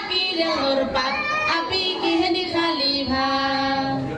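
Children's voices singing a song together, with long held notes that slide from one pitch to the next.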